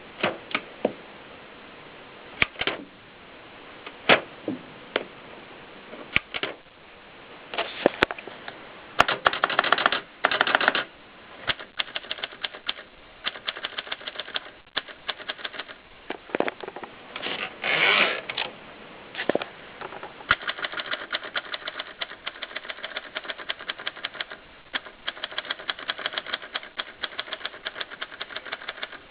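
Groma Kolibri portable typewriter being typed on: a few separate key strikes at first, then fast runs of clacking keystrokes, broken by a few longer mechanical rattles.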